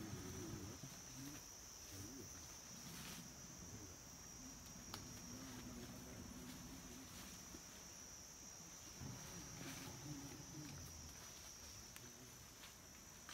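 Steady, high-pitched drone of forest insects, faint, with weak low sounds and a few light clicks underneath.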